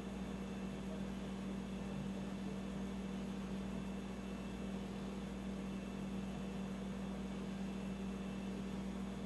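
Steady low hum with an even hiss underneath, unchanging throughout, with no distinct events.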